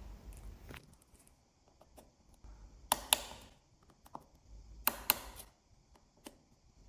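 Torque screwdriver tightening the small internal screws of an iPhone X, giving a few sharp clicks in two quick pairs about three and five seconds in, with faint ticks between.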